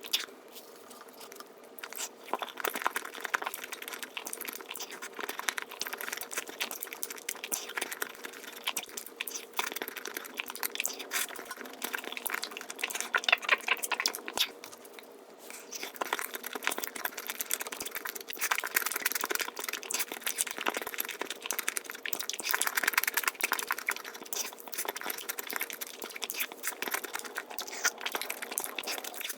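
Eating sounds of Nutella pancake crepes being chewed, sped up tenfold into a dense run of rapid, crackling clicks and smacks.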